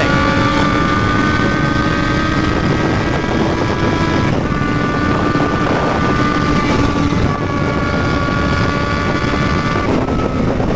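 Kawasaki Z750's inline-four engine running steadily at cruising speed, its pitch shifting slightly about four seconds in and again near the end, with wind noise on the microphone.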